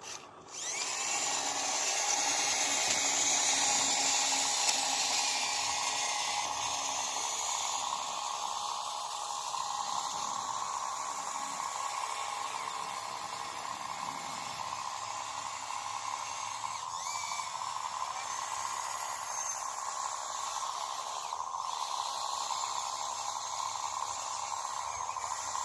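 Earthmoving machinery running steadily: a continuous mechanical whine with hiss, starting abruptly about half a second in.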